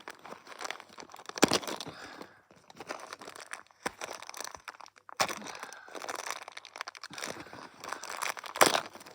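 Packaging crinkling and tearing as a small fan is worked out of its packet, with a few sharp cracks along the way, the loudest near the end.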